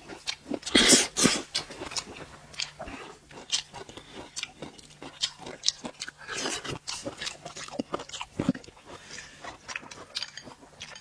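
A person biting and chewing food with irregular crunching and smacking, loudest about a second in.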